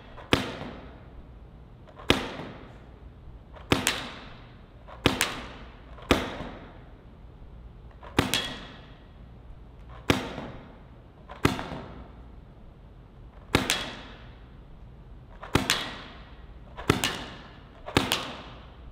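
Paintball marker firing single shots, about a dozen sharp pops spaced roughly one to two seconds apart, each with a short echo in an indoor hall.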